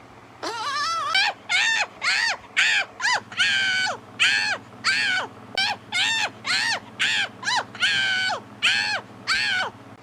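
A high-pitched voice giving short cries over and over, about two a second, each rising and then falling in pitch.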